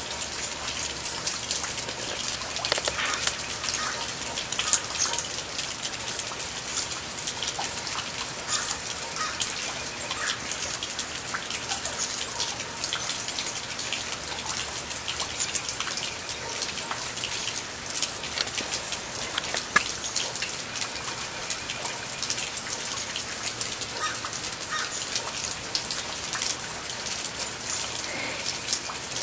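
Steady rain falling, a dense patter of drops that keeps an even level.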